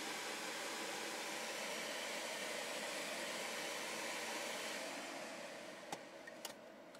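Car climate-control blower fan running with a steady rush of air from the vents, then winding down about five seconds in after a button on the climate panel is pressed. Two sharp clicks near the end.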